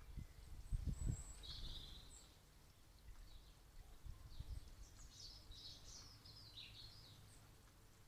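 Wind rumbling on the microphone in gusts, strongest in the first second or so. A small bird chirps in short high twittering phrases about two seconds in, and again through the second half.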